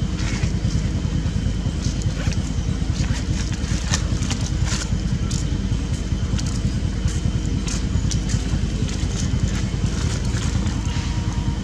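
A steady, rumbling buffet of wind on the microphone, with scattered short clicks and crackles over it.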